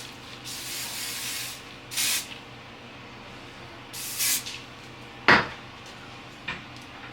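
Several short hissing bursts of a spray, followed by a sharp knock about five seconds in and a few light clicks.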